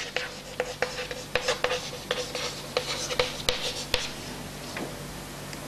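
Chalk writing on a chalkboard: an irregular string of short taps and scratches as a word is written out.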